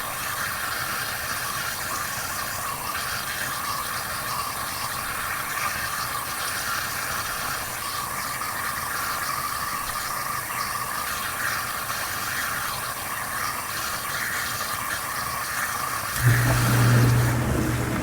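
Water bubbling and trickling weakly into a Whirlpool DU840DWGQ1 dishwasher tub through the side inlet openings, its flow restricted by calcium buildup in the inlet lines. About sixteen seconds in a motor starts with a steady low hum and the sound gets louder.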